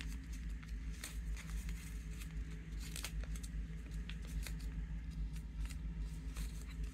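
A sheet of white paper being folded and creased by hand into an origami frog: scattered soft crinkles and clicks of paper, over a faint low hum.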